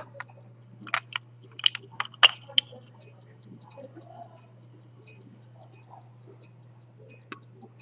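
A century-old minute-repeater chronograph pocket watch ticking evenly at about five ticks a second. In the first two and a half seconds a handful of loud, sharp metallic clicks come from the case being handled.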